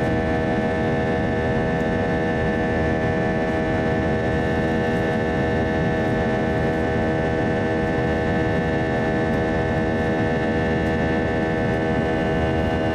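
Airbus A320-200 cabin noise in the climb after takeoff: a steady rumble of engines and airflow with a stack of steady engine tones over it.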